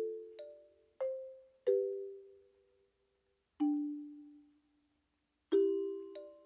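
Background music of slow, sparse, bell-like mallet notes, each struck and left to ring out, some sounded as two-note chords. There is a long pause in the middle.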